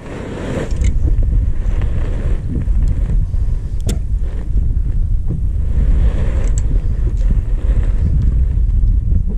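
Wind buffeting the microphone: a steady low rumble, with a few sharp clicks.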